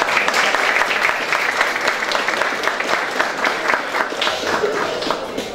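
Audience applauding, a dense run of hand claps that thins out slightly near the end.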